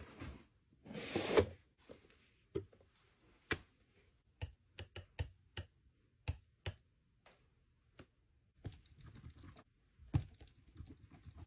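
Metal palette knife scraping and tapping on a paint palette: a loud scrape about a second in, then a scattered string of sharp clicks and taps, and softer scraping as paint is mixed near the end.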